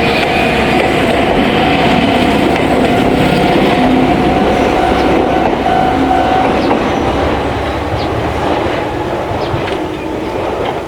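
Jomo Electric Railway train passing over a level crossing, its wheels clacking over the rail joints. The sound stays loud for about the first seven seconds, then fades as the train moves away.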